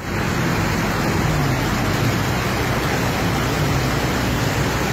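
Fast-flowing floodwater rushing through a street: a loud, steady rush of water, with a low engine hum underneath.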